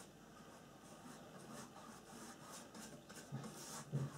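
Faint brushing of a paintbrush stroked across a canvas, with a couple of soft low thumps near the end.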